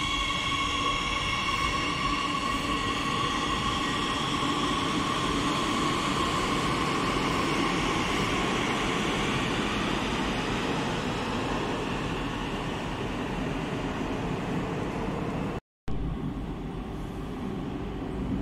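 Madrid Metro Series 8000 train running along an underground platform: a steady electric whine from its traction equipment over wheel and running noise, fading over several seconds. Near the end the sound cuts out for an instant, then a lower steady station hum follows.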